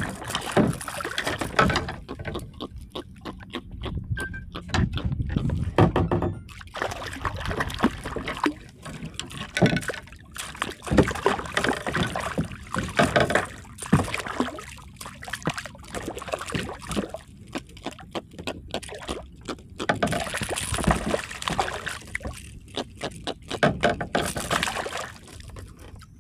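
Water splashing beside a kayak as a small hooked fish thrashes at the surface and is grabbed by hand, with irregular knocks and taps on the hull.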